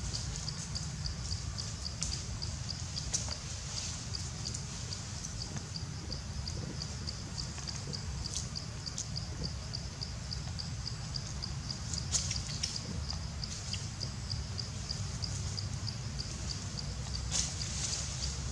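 An insect calling in a fast, even, high-pitched pulse, over a low steady rumble, with a few sharp rustles and snaps of dry leaves as the macaques move and forage in the leaf litter.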